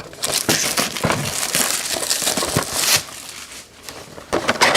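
Crinkling and rustling of card-box packaging being handled and opened, with many small crackles for about three seconds, a quieter spell, then louder handling again near the end.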